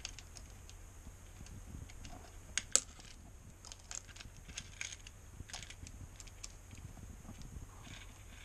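Motorcycle balancer chain clinking and rattling against a sprocket and the engine case as it is fitted over the sprocket by hand, scattered light metal clicks with one sharper clink nearly three seconds in.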